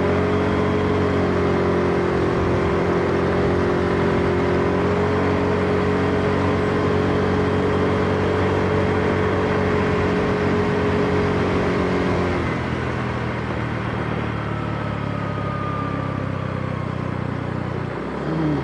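Small motor scooter engine running steadily at cruising speed over a constant rush of wind. About twelve seconds in the throttle eases and the engine note drops and quietens; near the end the revs dip briefly and then climb again.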